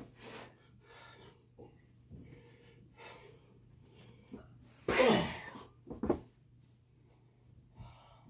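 Breathy grunts and gasps from people play-wrestling, with one loud vocal outburst falling in pitch about five seconds in and a short sharp sound about a second after it.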